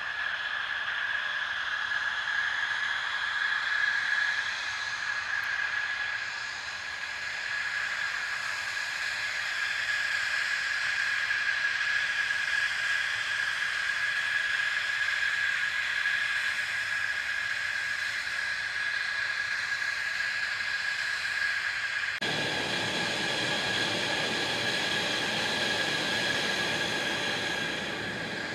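F-16 fighter jet engines running on the ground: a steady high whine with hiss over it. About 22 seconds in, a deeper rumble suddenly joins the whine.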